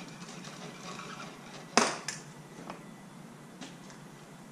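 A sharp knock about two seconds in, followed by a few lighter clicks, as a fishing rod is lifted out of a PVC pipe rod holder.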